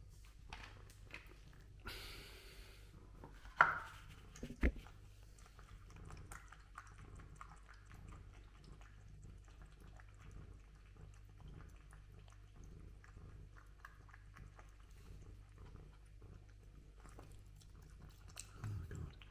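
A cat eating wet food from a bowl: a long run of faint, wet chewing and lapping clicks. A few seconds in, the bowl is set down on the tile floor with two sharp knocks.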